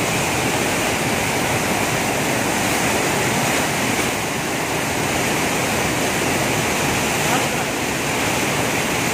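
Mountain waterfall cascading over boulders: a steady, loud rush of white water.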